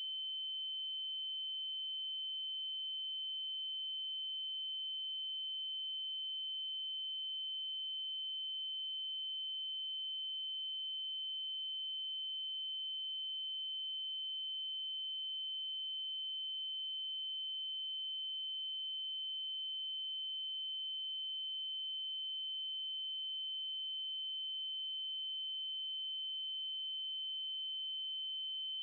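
Synthesized 3072 Hz triangle-wave tone: one steady, unchanging high pitch, with faint overtones above it.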